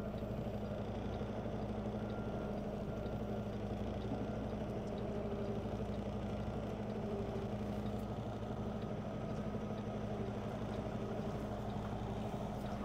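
Semi-truck diesel engine running steadily at low speed, a constant low hum.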